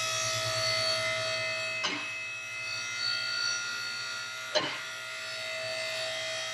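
Vehicle lift's electric pump motor running with a steady hum while it raises a car, with two sharp clicks about two and four and a half seconds in.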